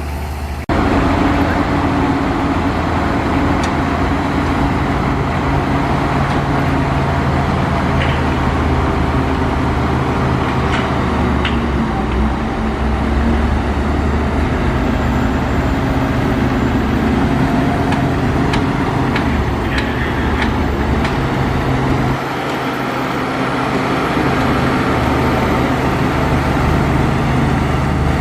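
Heavy diesel engine of earthmoving machinery running steadily, growing louder just under a second in, with a few short metallic clinks in the middle stretch.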